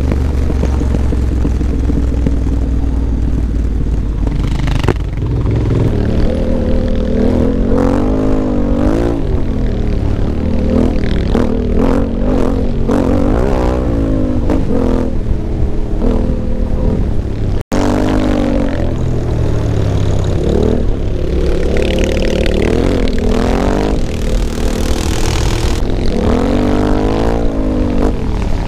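Yamaha Ténéré 700's 689 cc parallel-twin engine under way on a gravel track, its revs rising and falling again and again as the throttle is opened and closed through the gears. The sound drops out for an instant a little past halfway.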